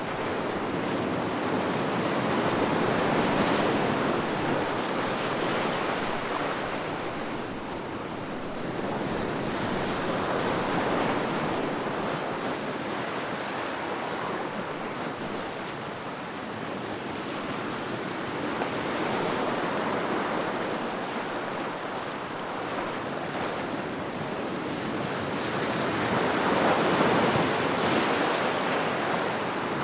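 Sea waves breaking and washing on a shore, the surf swelling and easing in slow surges about every eight seconds, with some wind noise.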